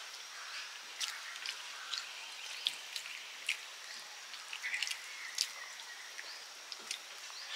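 Eating by hand: irregular sharp clicks and wet smacks from fingers working rice on metal plates and from chewing, a few each second.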